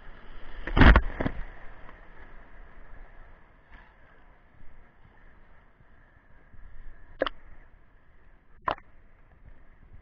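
Water splashing around a camera at the waterline: a loud rush of falling water about a second in as it passes through a waterfall curtain, then gentle lapping with two short sharp splashes near the end.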